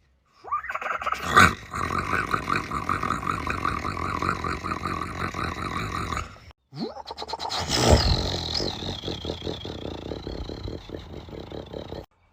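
A man imitating a diesel engine with his voice, in two long rattling runs. Each opens with a loud rev, then settles into a steady rattle.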